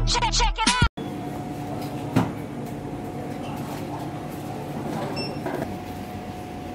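Electronic intro music cuts off about a second in. It gives way to the steady hum and background noise of a bakery shop, with one sharp knock about two seconds in.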